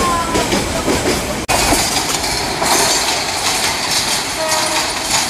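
Crowded diesel commuter train running past with a steady rumble and wheel clatter, and voices calling out from passengers riding on the roof. The sound breaks off for an instant about a second and a half in.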